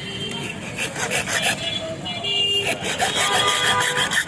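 Metal being filed by hand in quick, uneven strokes, with short squeaks of metal on metal: a key being shaped and finished.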